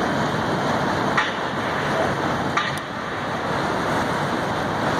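Steady rushing noise of wind and water, with a few short clicks about a second in and again near the middle.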